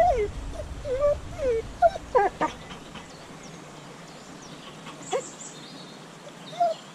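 A dog whining in short, high whimpers: several in the first couple of seconds, another about five seconds in, and more near the end.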